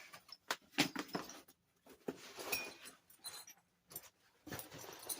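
Intermittent handling noises: a string of short clicks and knocks mixed with rustling and scraping.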